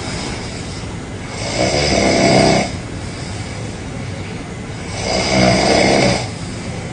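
A person snoring loudly: two long snores about three and a half seconds apart, each lasting about a second, with a steady low background noise between them.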